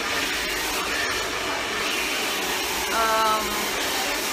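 Handheld hair dryer blowing a steady rush of air as wet hair is blow-dried.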